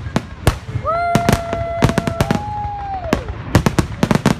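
Fireworks display: rapid loud bangs and crackling from bursting aerial shells. About a second in, a steady pitched tone holds for about a second and a half, steps slightly higher, then falls away.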